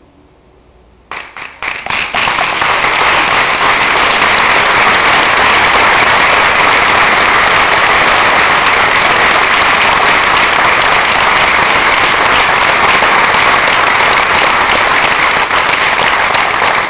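Audience applause at the end of a choral piece: a few scattered claps about a second in, building within a second into loud, steady, dense clapping.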